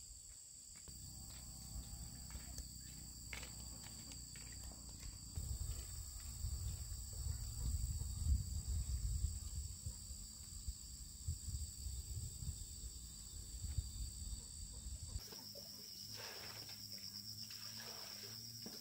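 Insects droning steadily in high continuous tones, with a low fluctuating rumble underneath. About fifteen seconds in the rumble stops and the insect drone changes to a single pulsing tone.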